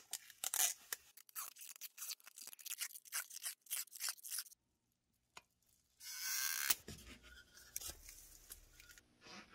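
Clear tape being pulled off its roll and wound around a deba knife blade: a run of quick crackling peels, a short pause, then a longer tearing pull of tape about six seconds in, followed by quieter rustling.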